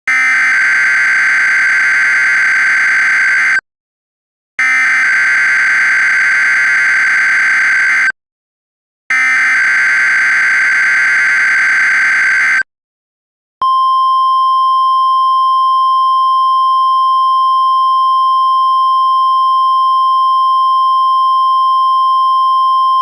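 Emergency alert signal: three harsh, buzzing header bursts of about three and a half seconds each, a second apart, then a single steady alert tone held for about ten seconds.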